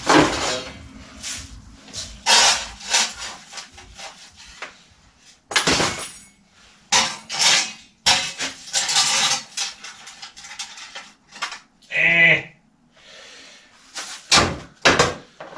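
Hand brush sweeping litter across the floor into a dustpan, a run of short scraping strokes, with clatter as the debris and pan knock into a bucket. A brief pitched sound stands out about three-quarters of the way through.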